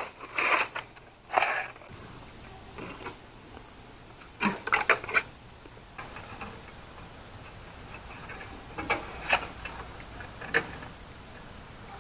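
Baling wire being twisted and snipped with pliers around the neck of a burlap sack: scattered short metallic clicks and scrapes, with a quick cluster of them about halfway through.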